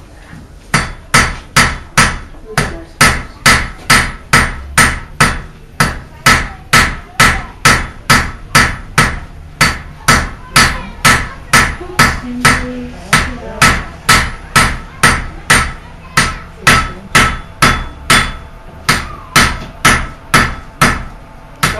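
A blacksmith's hammer striking iron on an anvil in a steady rhythm of about two blows a second, each blow ringing briefly, with a few short pauses. The iron is being forged into a hook.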